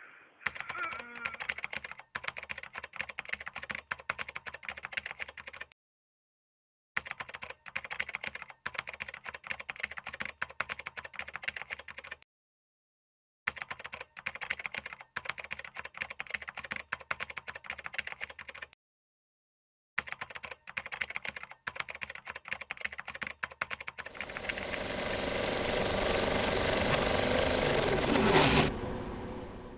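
A dense, rapid rattling clatter in four bursts of about five seconds each, with a second or so of silence between them. Then a rushing noise swells for about four seconds and ends with a falling tone.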